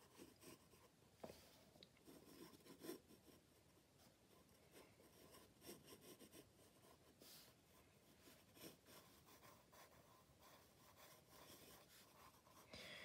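Faint scratching of a pencil sketching short, irregular strokes on sketchbook paper.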